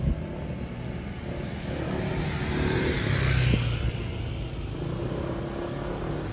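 Street traffic: a motor vehicle passes close by, swelling to its loudest about three and a half seconds in and then fading, over a steady low rumble.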